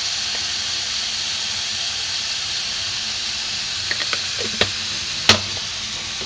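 Chopped vegetables and onions sizzling steadily as they fry in oil in a metal pan. A few light clicks come near the end, with one sharper knock about five seconds in.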